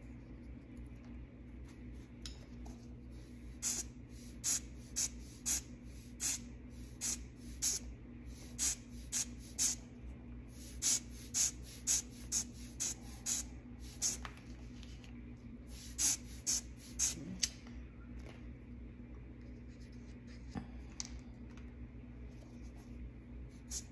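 Hand-squeezed rubber bulb air blower puffing air onto wet alcohol ink on paper: a run of short hissy puffs, about two a second, that start about four seconds in and thin out after about seventeen seconds.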